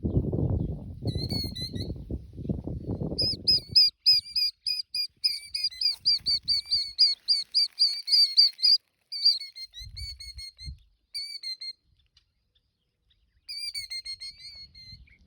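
A bird calling with short, high, downward-slurred chirps: a few single notes, then a fast run of about four or five a second for several seconds, then spaced-out calls again near the end. A low rumbling noise runs under the first four seconds.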